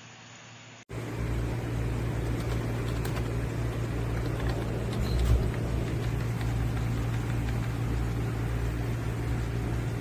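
Faint hiss, then about a second in a steady low hum over a constant rushing noise cuts in suddenly and holds, with a few faint clicks.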